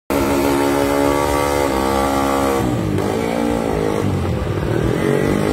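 Honda Sonic drag bike's engine revved hard and held at high revs. It drops off a little under three seconds in, wavers, and climbs back up near the end.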